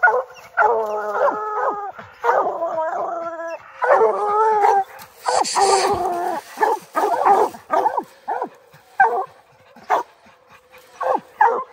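Several hunting hounds baying treed at the foot of a tree, signalling that the bear is up the tree: long drawn-out bawls for the first few seconds, then short chopping barks.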